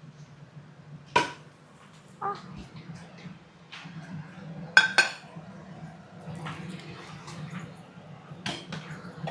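Kitchen dishes and utensils being handled, giving a handful of sharp clinks and knocks. The loudest are two close together about halfway through. A steady low hum runs underneath.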